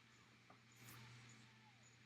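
Near silence: room tone with a faint steady low hum, a tiny tick about half a second in and a soft faint rustle around the one-second mark.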